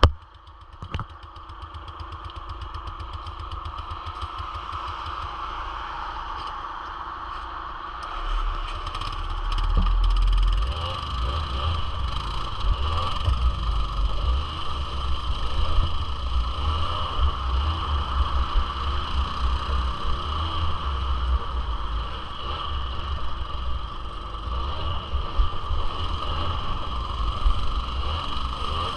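Suzuki LT80 quad's small two-stroke single-cylinder engine running as it is ridden. It grows louder about eight to ten seconds in, then keeps going with an uneven, wavering level.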